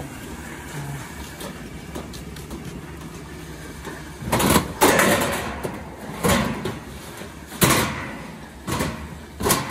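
Corrugated galvanized steel decking sheets clanging and scraping as they are lifted by hand off a stack. About six loud metallic crashes, each ringing briefly, start about four seconds in.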